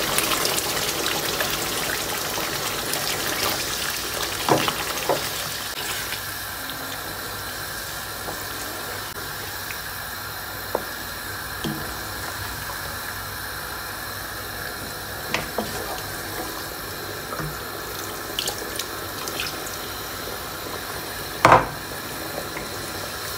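A cup of boiled water poured into a hot pan of chicken curry, the liquid hissing and bubbling, louder for the first few seconds and then settling to a steady simmer. A wooden spoon stirring gives a few light knocks against the pan, the loudest near the end.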